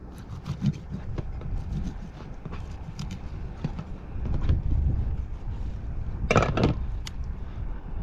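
Knife cutting a barracuda into chunks on a plastic bucket lid: scattered taps and clicks over a low rumble, with one louder scrape lasting about half a second some six seconds in.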